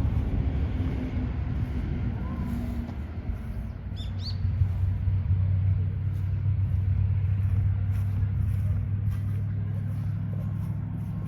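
Steady low rumble of a vehicle running, with a continuous hum, and a short chirp about four seconds in.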